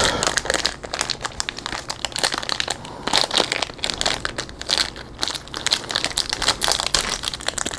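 Plastic wrapping on a block of cheddar cheese crinkling and crackling in irregular bursts as it is handled and pulled at to get it open.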